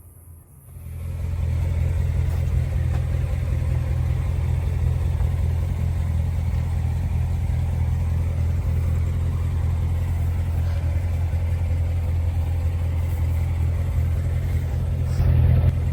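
Corvette Z06's V8 engine idling steadily, a deep even hum that comes up about a second in.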